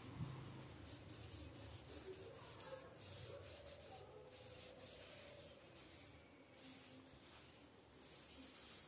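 Faint rubbing of a cotton pad, damp with dish-soap solution, wiped along an orchid leaf in short irregular strokes.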